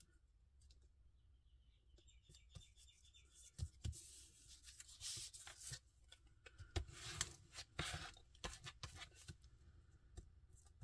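Paper being handled and slid across a cutting mat: soft rustles and light knocks and clicks, with two louder spells of rustling in the middle.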